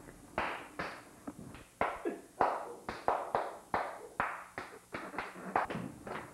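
A rapid, uneven series of sharp slaps and thumps, about two or three a second: hands slapping against hands and bodies in a scuffle between two people.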